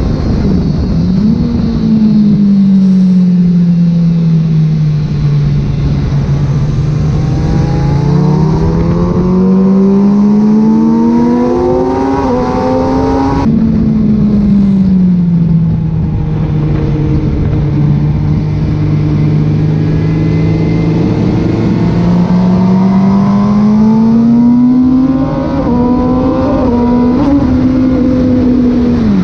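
Rebuilt Kawasaki ZX636 inline-four motorcycle engine at track pace, revs dropping on the brakes, held low, then climbing steadily back up through long corners, over steady wind rush. The sound jumps abruptly about halfway through, then the same drop and climb repeats.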